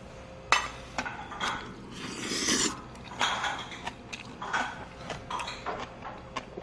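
Close-up eating sounds: chewing and mouth noises, with chopsticks and a spoon clicking against bowls and dishes. A sharp click about half a second in is the loudest.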